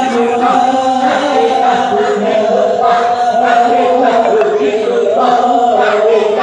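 Congregation of men chanting together in unison, a slow devotional Islamic chant with long held notes.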